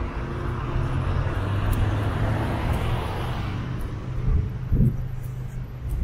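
A motor vehicle on a city street: a steady low engine hum, with a swell of passing road noise midway.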